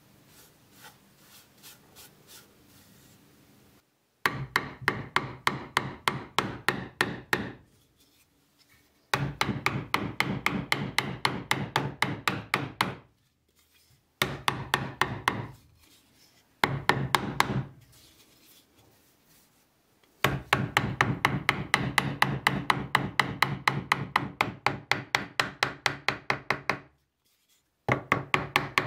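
Small hammer tapping rapidly on the wedge and iron of a large old wooden hand plane, in runs of quick even taps, about four a second, with short pauses between. Before the tapping starts, a few seconds of faint rubbing as fingers brush dust off the wood.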